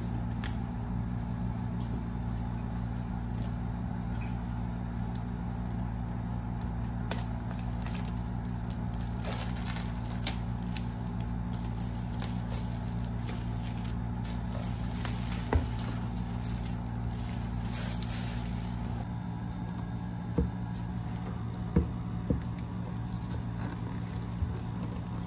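Clear plastic shrink wrap being handled and peeled off a cardboard retail box, crinkling and crackling for several seconds in the middle, over a steady low hum. Near the end, a few short taps and knocks as the box is handled.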